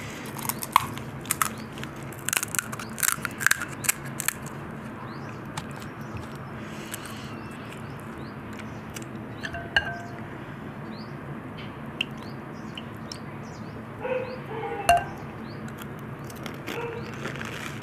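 Eating panipuri: crisp puri shells crunching between the teeth, then a steel spoon clinking against a glass bowl of pani, with a few scattered clinks and a louder one near the end.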